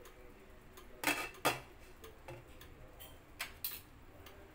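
A few light clinks of cookware: two sharp ones close together about a second in, then two quieter ones past the three-second mark.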